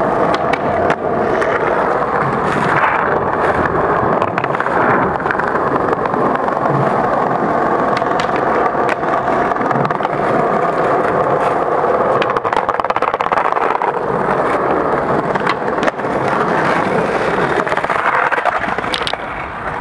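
Skateboard wheels rolling over stone paving, a steady rough rumble, with several sharp clacks of the board at intervals.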